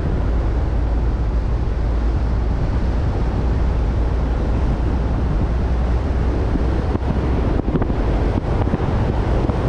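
Wind buffeting the microphone of a camera mounted on a moving car, a steady loud rumble mixed with the car's road noise.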